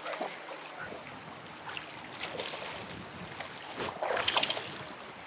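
A hooked brook trout thrashing and splashing at the surface as it is played toward a landing net, over the wash of running river water. The biggest splashing comes about four seconds in, with a smaller flurry around two seconds in.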